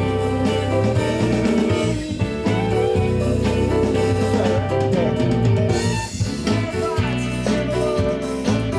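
A band's multitrack recording playing back: drum kit, bass and guitar under long held chords, with a steady beat.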